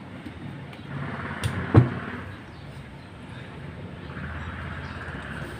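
A sharp knock a little under two seconds in, with a lighter tap just before it, as the opened water heater's casing and parts are handled, over a steady background hum.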